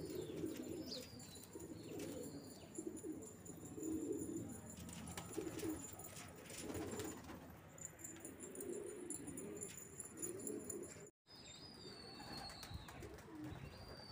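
Domestic pigeons cooing, low coos repeating one after another, with a few faint high bird chirps above them. The sound drops out completely for a moment about eleven seconds in.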